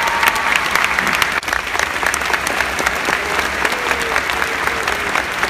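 A large arena crowd applauding, a dense, steady wash of clapping with individual hand claps close by standing out.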